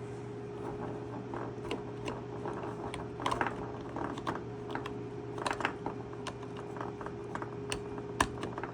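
Irregular small clicks and scrapes of an Arduino board being handled and slid along the rails of an enclosure, over a steady low hum.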